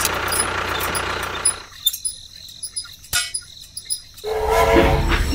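A small electric motor of a homemade model running with a steady buzzing whine, cutting off about a second and a half in. A single click follows, and near the end a louder humming sound with several steady tones starts up.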